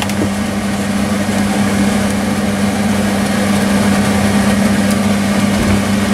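Kitchen appliance running: a steady low electrical hum under an even, fan-like rush of noise.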